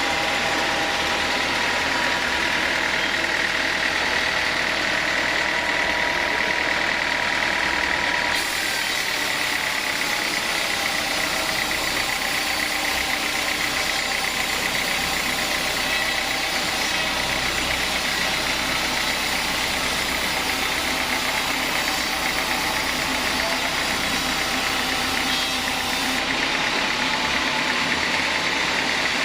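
Sawmill saw running steadily with a high whine. About eight seconds in, the sound abruptly turns hissier and brighter, then drops back near the end.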